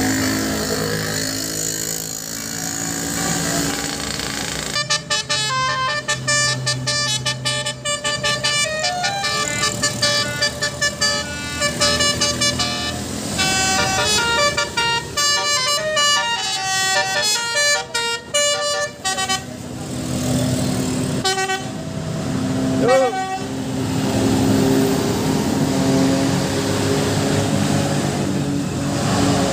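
Indonesian bus 'telolet basuri' musical air horn playing a fast tune of quick stepped notes. It starts about five seconds in and stops about fifteen seconds later, over the bus's running engine and traffic noise. A short horn blip follows a few seconds after the tune ends.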